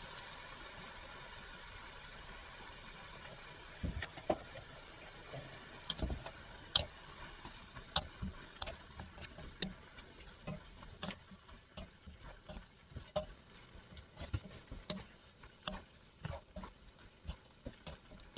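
A steady hiss that fades over the first few seconds, then irregular light clicks and knocks of kitchen utensils against cookware, about one or two a second.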